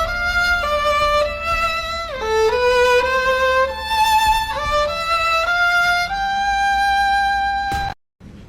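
Background music: a solo violin playing a slow melody of held notes with slides between them, ending on a long held note that cuts off suddenly near the end.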